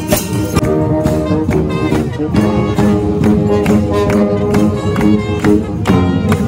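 Marching band playing live on the march: trumpets, trombone and sousaphone carrying the tune over a steady beat of bass drum, snare drum and cymbals.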